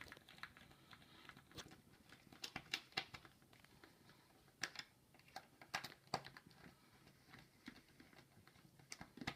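Faint, irregular small clicks and ticks of a screwdriver driving screws into the plastic base of a home essential-oil diffuser.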